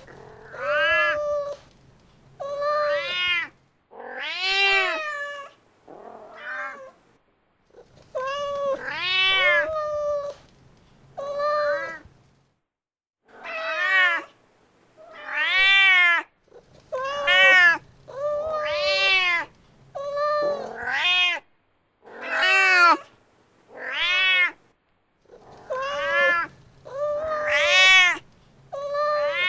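Mother cat calling for her kitten: a long run of repeated meows, each rising and then falling in pitch, about one every one to two seconds, sometimes two in quick succession.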